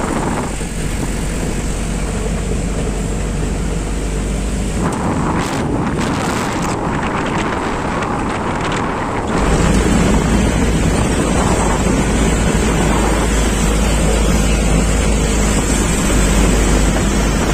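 Wind rushing over the microphone with the running noise of a moving open-backed vehicle. It gets louder and heavier about halfway in.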